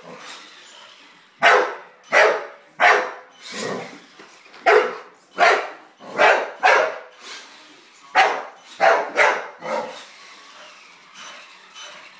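A dog barking repeatedly at a small remote-control truck driving around it, about a dozen sharp barks in uneven runs. The barking falls quiet for the last couple of seconds.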